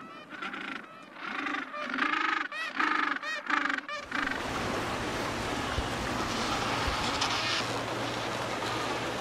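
A series of short honking seabird calls for about four seconds, cutting off suddenly into a steady rush of surf.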